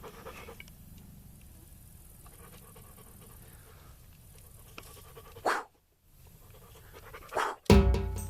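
A dog panting, fading out within the first second, then faint background sound. Near the end there are a couple of sharp noises, and music with drums starts; the music is the loudest thing.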